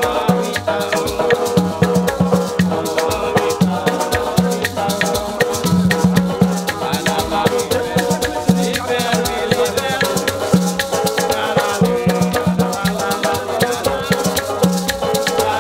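A small Haitian acoustic band playing live: a banjo and an acoustic guitar strummed, with maracas shaking a steady rhythm over a pulsing bass line.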